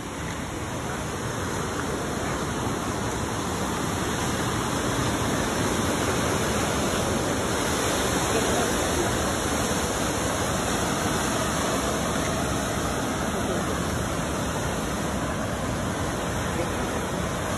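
Steady rush of flowing water, an even hiss that swells over the first several seconds and then holds.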